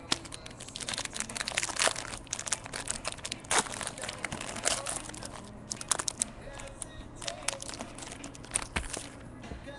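Plastic and foil wrapping of a baseball card box being torn open and crinkled by hand: a dense, irregular run of crackles and rustles.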